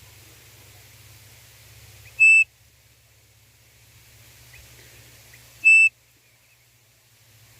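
A hand-blown quail call whistle (pio) sounding two short, steady-pitched high whistle notes about three and a half seconds apart, used to lure a codorniz.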